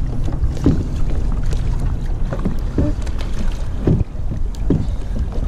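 Water splashing and sloshing around a kayak as a swimmer climbs aboard, with several short splashes over a steady rumble of wind on the microphone.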